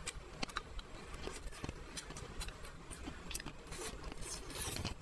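Close-miked chewing of a juicy chicken leg roll, with scattered small mouth clicks, and a bite taken from a fork near the end.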